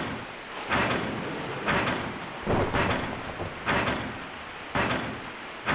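Machine sound effect: a noisy, hissing mechanical pulse about once a second, each one starting suddenly and fading away, in a steady rhythm.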